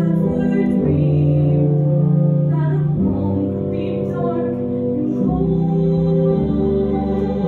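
A stage musical song: a young female voice singing over an instrumental accompaniment, in long held notes that change every second or two.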